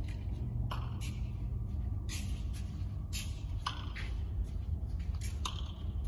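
Steady low background hum with a handful of short, soft hissing rustles at irregular intervals.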